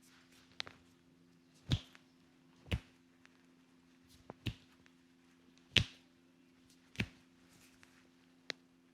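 Hand strikes of an Indian head massage: about eight sharp slaps at uneven spacing, several carrying a dull thud, the loudest a little before the six-second mark.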